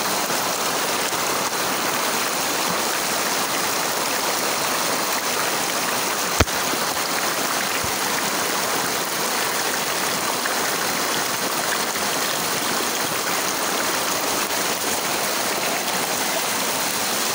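Stream water running steadily over rocks, a constant rushing hiss, with one sharp click about six seconds in.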